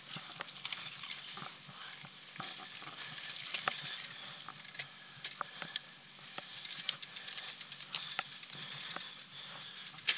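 Mountain bike on a dirt trail: a steady crackle from the ground, with scattered sharp clicks and a ratchet-like ticking.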